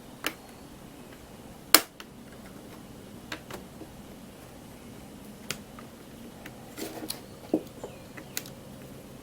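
Sharp plastic clicks and snaps, about eight of them at uneven intervals, the loudest a little under two seconds in. They come from the keyboard's retaining clips on an Asus X550Z laptop popping free as a small pry tool works around its edge.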